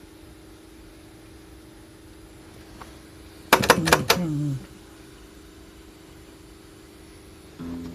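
A quick cluster of sharp mechanical clicks and clatter from a Panasonic RS-858U 8-track cartridge deck, lasting about a second, with a low tone sliding down as it settles. A steady hum runs underneath, and music from the tape starts just before the end.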